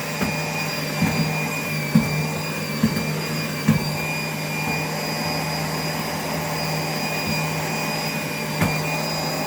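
Vacuum cleaner running steadily with a high whine over a low hum, with a few short knocks, about five in all.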